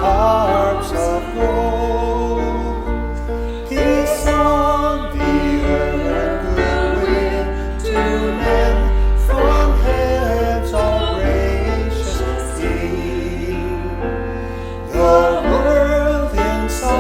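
A worship song: singing voices over an instrumental accompaniment with a sustained bass.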